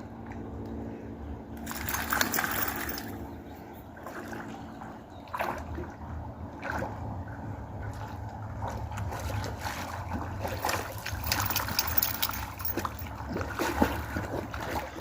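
Pond water splashing and sloshing irregularly as a Labrador retriever wades in it, over a steady low rumble.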